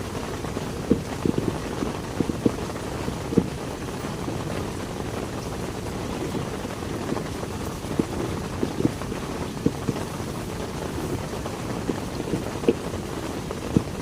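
Heavy rain falling steadily, with scattered louder drops landing irregularly on a nearby surface.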